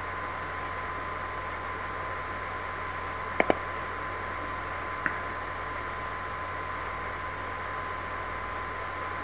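Steady hiss of an open microphone with a faint high steady tone and a low hum. Two quick clicks come close together about three and a half seconds in, and a fainter click follows near five seconds.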